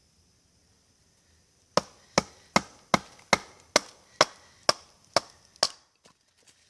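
Ten rapid blows of a 10-inch Condor Lochnessmuk knife (1075 high-carbon steel, Nessmuk style) biting into wood, about two and a half a second. They start a couple of seconds in and stop abruptly near the end.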